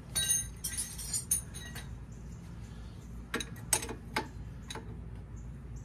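Wrench clinking against the caliper bolts of a VW Beetle front disc brake conversion as they are snugged up: a quick cluster of ringing metal clinks in the first two seconds, then a few more about three and a half to five seconds in.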